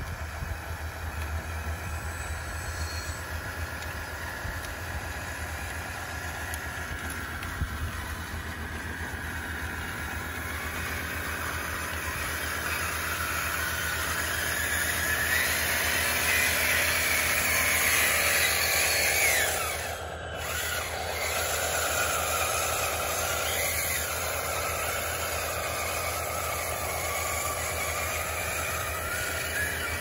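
Electric drive motors and gears of a radio-controlled model construction vehicle whining under a steady low hum. The whine rises in pitch and loudness through the first two-thirds, breaks off briefly about twenty seconds in, then runs on steadily.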